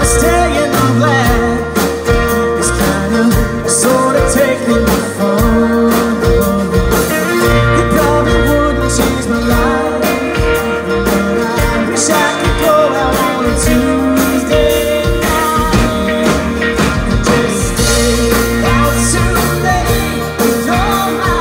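Live band music: a male lead singer over strummed acoustic guitar, electric guitar and drums, in a country-pop style.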